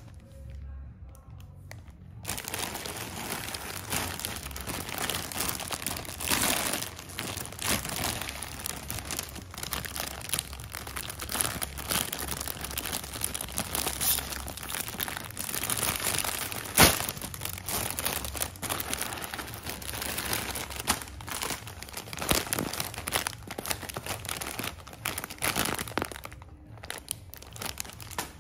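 Plastic multipack bag and the small foil snack bags inside it crinkling and rustling as hands handle, open and pull them apart. The crinkling starts about two seconds in, with one sharp crack about seventeen seconds in.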